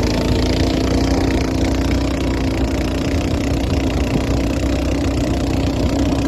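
Boat engine running steadily under way, a constant drone that holds the same pitch throughout.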